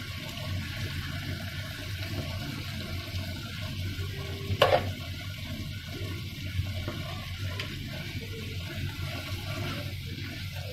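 Pork and tomato curry simmering in a non-stick pan, a steady bubbling sizzle, with a single sharp click about halfway through. A spatula stirs the pan near the end.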